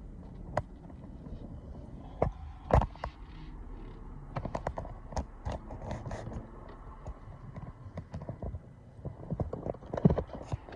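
Irregular light clicks and knocks, a few louder ones about two and three seconds in and near the end.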